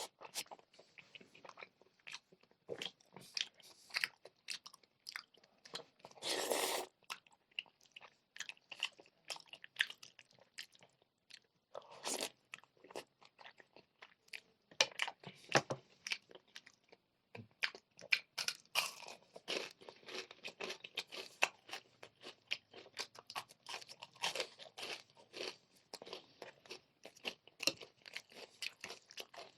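Close-miked chewing and crunching of crispy fried chicken pieces and spicy noodles: many quick, sharp crunches one after another, with a longer noisy burst about six seconds in.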